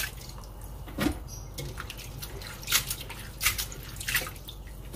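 Water dripping and splashing as hands swish, rub and lift handfuls of bean sprouts in a stainless steel bowl of water, with several short splashes.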